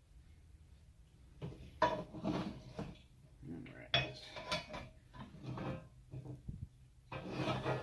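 Steel server-rack frame pieces and screws being handled and fitted together: irregular metal clinks and rattles, with sharp knocks about two and four seconds in.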